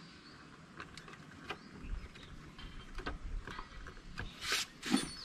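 Scattered light clicks and knocks as plastic and metal parts of a motorcycle's tail section are handled, with a brief louder scrape about four and a half seconds in.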